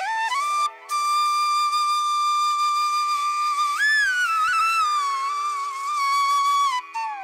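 Background music: a slow melody of long held, gliding notes over a steady drone.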